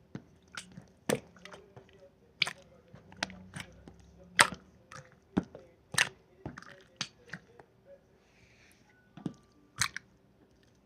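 Marbled slime being squished and pressed by hand, giving irregular sharp clicks and pops, about fifteen over the stretch.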